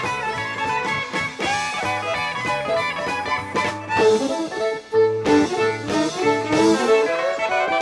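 Live country band playing an up-tempo instrumental passage on fiddle, banjo, guitars and drums, with a quick run of lead notes from about the middle on.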